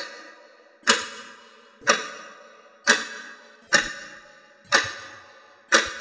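Clock ticking steadily about once a second, each tick a sharp click followed by a ringing tail that fades away before the next.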